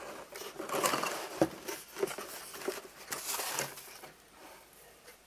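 Box and packaging being opened and handled: irregular rustling and crinkling with light knocks, one sharper knock about one and a half seconds in, growing quieter near the end.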